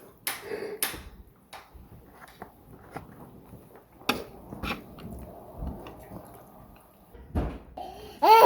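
Quiet eating sounds: scattered small clicks and rustles of food, packaging and utensils, with chewing, and a single soft knock about seven seconds in. A child's voice cuts in right at the end.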